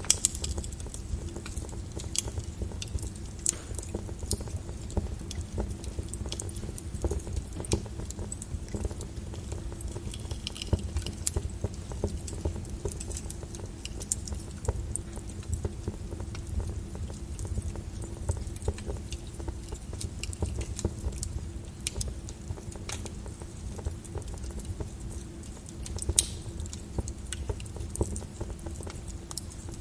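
Wood fire crackling in a fireplace, with irregular sharp pops and snaps over a steady low rumble, layered with soft rain patter.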